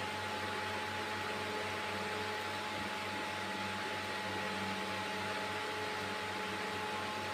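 Tour boat's engine running steadily, heard from inside the cabin: an even low hum with a faint, steady higher tone above it.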